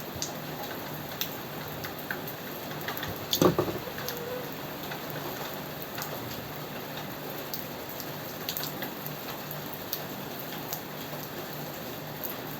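Steady rain falling, with scattered individual drops ticking on a surface and a brief louder cluster of drops splashing about a third of the way in.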